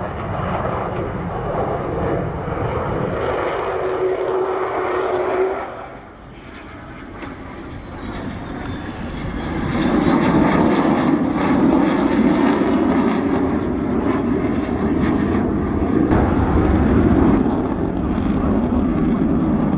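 Aircraft engine noise from a display plane flying past. The sound drops off sharply about six seconds in, then builds again and is loudest from about ten seconds on.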